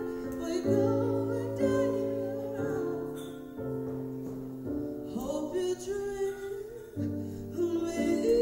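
A woman singing a song into a microphone over instrumental accompaniment, amplified through a PA, with held chords that change about once a second.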